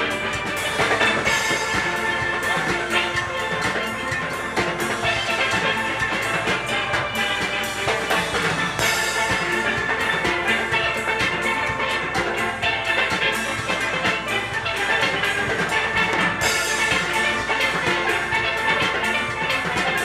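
Steel orchestra playing: many steelpans struck in a fast, dense run of ringing notes, with drums keeping the beat behind.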